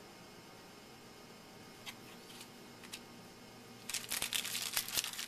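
Quiet room tone with a few faint clicks, then about four seconds in a trading-card pack's wrapper is torn open and crinkled in quick, dense crackles.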